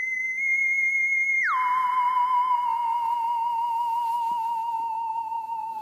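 Theremin-like electronic tone: a high held note that slides down to about half its pitch about a second and a half in, then holds there with a slight wavering, slowly fading near the end.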